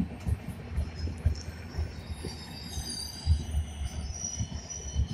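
Passenger express train running through at full speed: a steady rumble with quick, irregular thuds as the coach wheels pass over the rail joints. From about two seconds in, thin, steady high-pitched squeals from the wheels join the sound.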